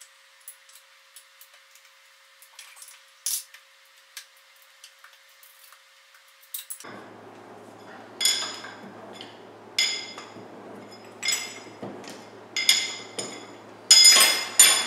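Metal-on-metal clinks from hand tools and steel tooling at a punch press's die set. A few faint clicks come first, then from about seven seconds in there are sharp clinks with a short ring every second or so, bunching together near the end.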